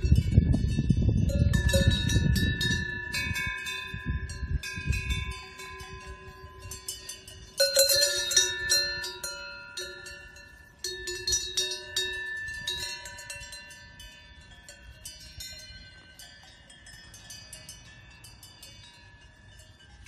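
Several cowbells worn by grazing cows clanking and ringing, their tones at different pitches overlapping and ringing on as they slowly fade. Louder clanks come about 8 and 11 seconds in. A low rumble lies under the first five seconds.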